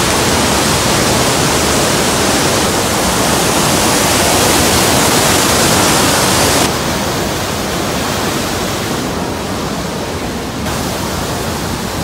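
The Rhine Falls' water pouring over the rocks at close range: a loud, steady rush of falling water. It turns duller and a little quieter about two-thirds of the way through.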